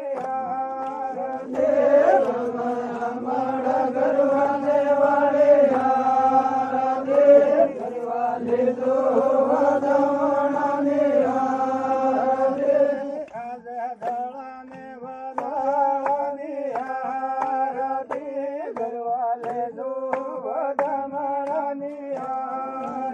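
Devotional Vagadi bhajan (aarti) chanted in long held notes, briefly quieter about halfway through.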